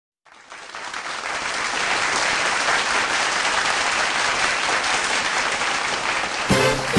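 Audience applause, fading in over the first second or two and then holding steady. Near the end a big band strikes up, its brass coming in.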